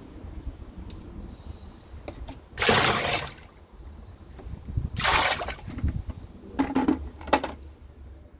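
Water splashing in a drain inspection chamber in short bursts, two louder ones about two seconds apart and then two brief ones near the end. The water is standing in the chamber, potentially backed up by a blockage further down the line.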